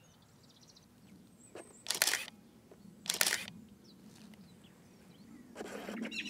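Nikon 35mm film SLR firing twice, about a second apart: each time the shutter releases and the motor advances the film. Small birds chirp near the end.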